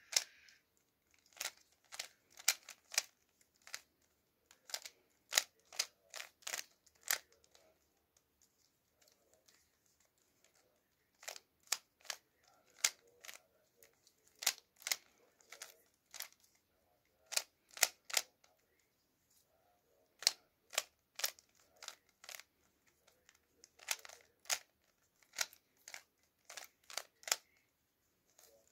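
Stickerless 3x3 speed cube being turned by hand: a string of sharp plastic clicks and clacks as its layers are flicked. They come in irregular bursts, with a longer pause about a third of the way through.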